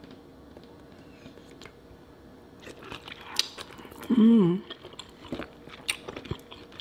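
A person biting into and chewing sauce-dipped lobster tail meat, with wet smacking and clicking mouth sounds starting about two and a half seconds in. A loud hummed "mmm" comes about four seconds in.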